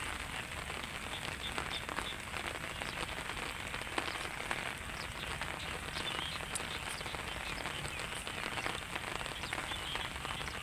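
Light rain falling steadily, a dense patter of small drops.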